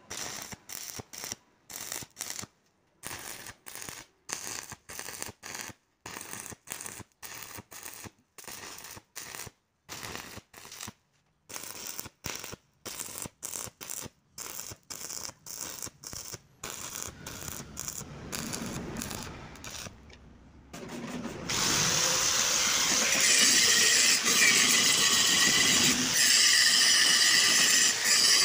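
Electric arc welding on square steel bar, crackling in many short bursts with silences between. About three-quarters of the way in, an angle grinder starts and runs steadily, much louder.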